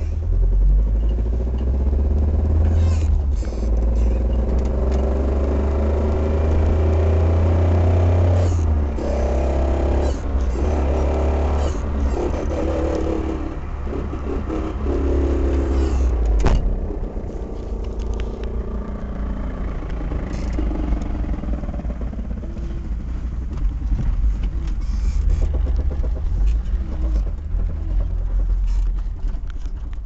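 Fiat Spider heard from inside the cabin while moving: a heavy low rumble with a droning whine over it that comes and goes through the first half and fades after a sharp click about halfway. The owner places the noise at the rear end.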